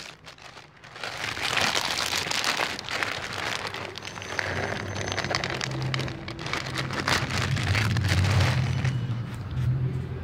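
Dry cat food rattling as it is poured from a plastic bag into a plastic bowl, the bag crinkling, then a hungry cat crunching the kibble. A low steady hum lies underneath.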